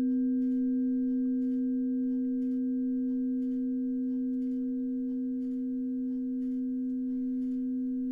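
Sustained, pure ringing tone of a sound-healing instrument near middle C, with a fainter tone an octave above, slowly fading. Faint soft ticks come about once a second beneath it.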